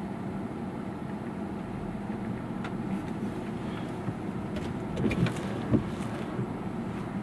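Vehicle engine running steadily with a low hum. A few short knocks and clicks come about five seconds in.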